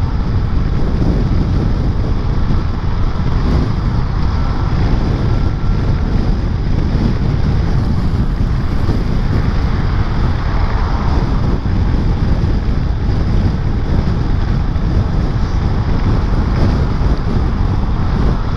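Wind buffeting the microphone of a scooter rider moving through heavy rain, a loud, steady rumble that buries the engine.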